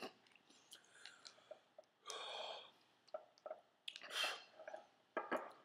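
A man chewing a mouthful of super-hot chili peppers, with wet mouth clicks and two breathy exhales about two and four seconds in.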